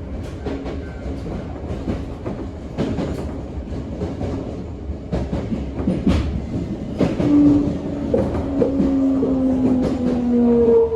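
Toei 5300 series electric train heard from inside the car as it slows into a station, wheels clicking over rail joints. About seven seconds in, the Mitsubishi GTO-VVVF inverter's tone sets in and falls slowly in pitch as the train brakes.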